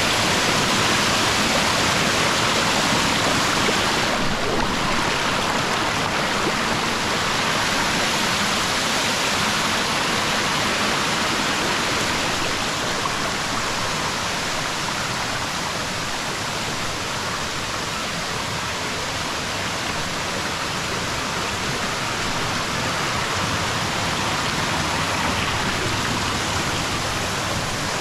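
Small waterfall spilling over rocks in several thin cascades: a steady rush of falling water.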